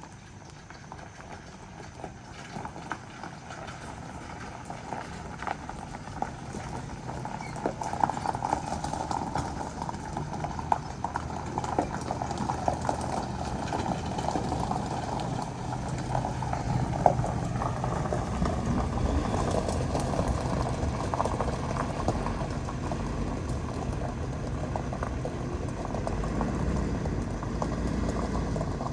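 Pickup truck pulling out and driving off, a steady engine hum under irregular rattling and knocking clatter, getting louder over the first half.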